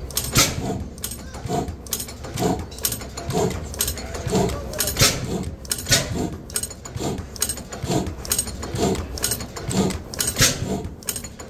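Large Crossley Bros gas engine running, its valve gear clacking in a steady rhythm of about two knocks a second.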